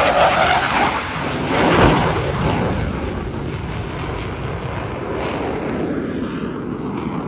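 Boeing F/A-18 Super Hornet jet making a low pass and pulling up into a climb: loud twin-engine jet noise that peaks about two seconds in, then fades slowly as the jet climbs away.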